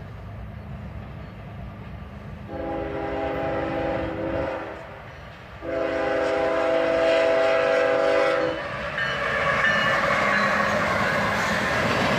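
Horn of a freight train's lead locomotive, a GE ES40DC, sounding two long blasts, the second louder. Then the locomotives' engines and wheels pass close by with a loud, growing rumble and rattle.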